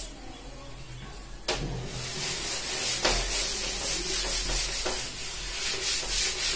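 Whiteboard being wiped with an eraser: a dry, hissing rub of repeated strokes across the board, starting about a second and a half in.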